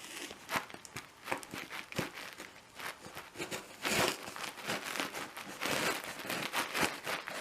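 Parcel packaging being cut and torn open by hand: crinkling and tearing of the wrapping with many short crackles and scrapes.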